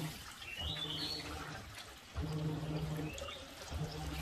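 Water from a hose pouring and splashing into the plastic coolant tray of a slow-speed metal cut-off saw. A bird chirps a few times.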